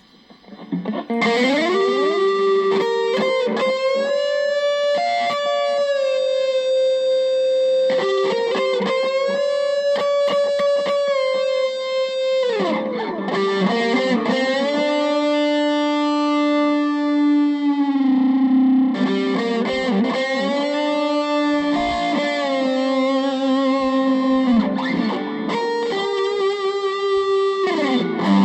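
Epiphone Les Paul Special VE electric guitar playing a lead line through effects. It comes in about a second in, with long held notes, string bends and vibrato.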